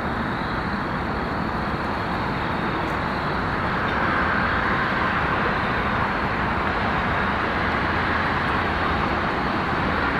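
Steady rumble of passing vehicle noise with a faint high whine, growing a little louder about four seconds in.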